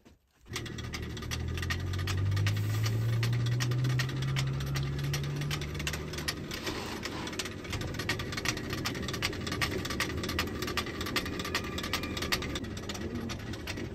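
Traditional stone grain mill running, its hopper feeding grain while the feed mechanism rattles in rapid clicks over a steady grinding rumble. A low hum rises in pitch through the first half, then fades.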